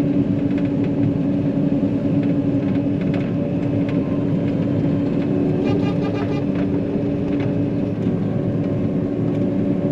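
John Deere 9500 combine heard from inside its cab while driving on the road: a steady engine drone and rumble that holds one pitch. A few faint rattling ticks come in about halfway through.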